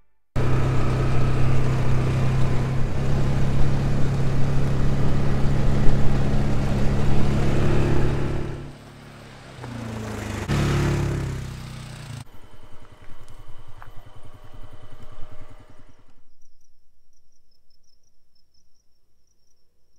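A vehicle engine runs steadily, eases off about nine seconds in, picks up again with a falling pitch and shuts off about twelve seconds in. After a few seconds of faint rustling, crickets chirp in a faint, fast, high trill.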